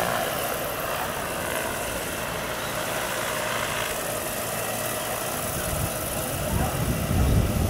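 Electric scale model Vario CH-47 Chinook tandem-rotor helicopter flying, its twin rotors and electric drive making a steady whirring hum. A low, gusty rumble comes up near the end.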